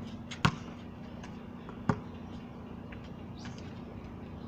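Basketball bouncing on a concrete court: two sharp bounces about a second and a half apart, with a few fainter taps between them.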